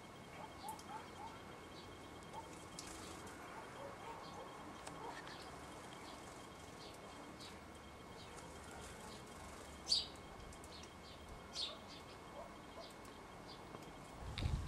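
House sparrows chirping in short, scattered notes, with two louder, sharper chirps in the latter part.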